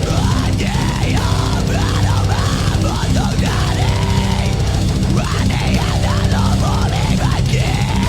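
Heavy metal music: a distorted electric guitar lead with repeated string bends over bass and drums.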